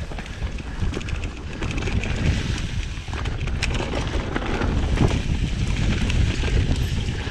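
Mountain bike riding over rough trail: tyres rolling on dirt and stones with the bike rattling in many sharp clicks and knocks, and wind rumbling on the microphone.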